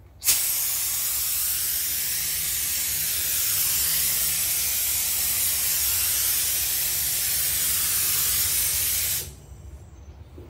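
Gravity-feed air spray gun hissing steadily as it mists activator over hydrographic film on the water. It starts sharply about a third of a second in and cuts off after about nine seconds.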